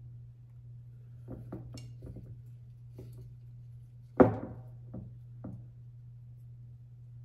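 Light knocks and clinks of a tall glass cylinder vase as flower stems are pushed down inside it, with one much louder knock about four seconds in that rings briefly, then two softer ones. A steady low hum underneath.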